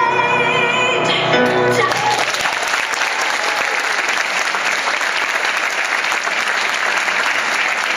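A singer's final held note with piano and strings, ending a second or two in, then an audience applauding steadily.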